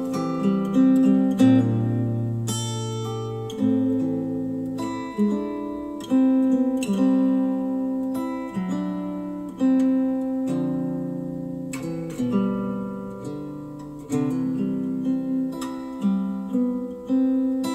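Instrumental acoustic guitar music, plucked and strummed chords ringing out one after another, played back through JBL HDi 1600 bookshelf speakers driven by an IOTAVX SA3 integrated amplifier.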